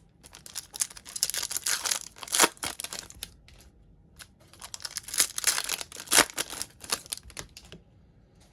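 Plastic trading-card pack wrappers being torn open and crinkled, in two spells of tearing and rustling with a short pause between.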